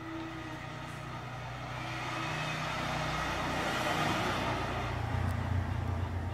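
A motor vehicle passing by: a rushing hiss that swells to a peak about four seconds in and fades, with a low engine rumble that grows stronger near the end.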